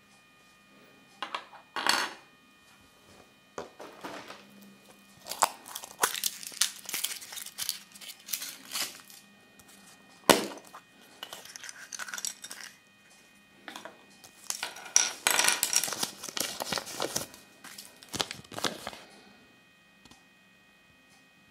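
Hands handling a Kinder Surprise capsule and its small plastic toy: scattered plastic clicks and rattles, then a sharp snap about ten seconds in as the yellow plastic capsule is pried open. After that comes crinkling and rustling as the folded paper toy leaflet is opened out.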